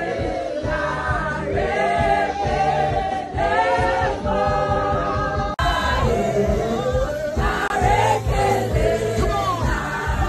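A large crowd singing together, many voices at once over a low, steady beat. The sound breaks off for an instant about halfway through, then the singing carries on.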